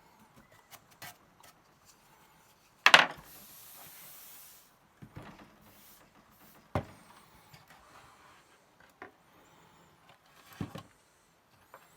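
Plastic printer parts being handled, with a loud knock about three seconds in and a few smaller clicks and knocks. Right after the loud knock comes a brief aerosol spray hiss of about a second and a half, likely lubricant or air being sprayed at the print-head rail.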